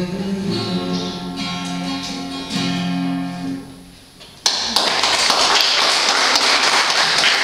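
Acoustic guitar playing the closing chords of a song, the notes ringing and fading away. Then, about four and a half seconds in, audience applause starts suddenly.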